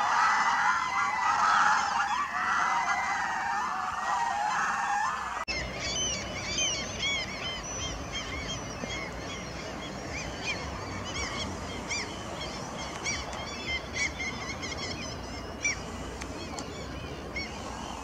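Water birds giving loud, rapid goose-like cackling calls for the first five seconds or so, then cutting off abruptly. After that come many short, high chirping calls from birds over a steady outdoor background.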